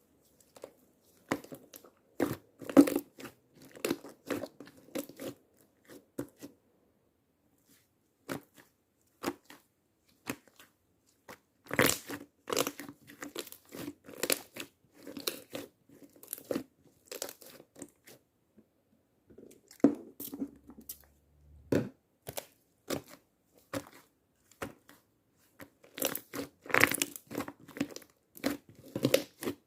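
Slime being squeezed and worked by hand, giving runs of crunchy crackling and clicking a few seconds long, with quieter pauses between.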